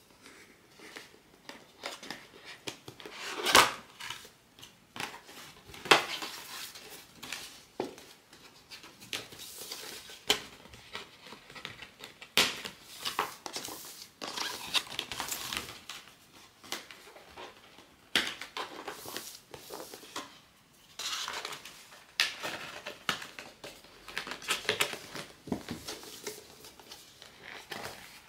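Hands opening a POP MART blind box: irregular clicks and taps of the cardboard box and plastic parts, with crinkling and tearing of packaging between them. Two sharp clicks about three and a half and six seconds in are the loudest.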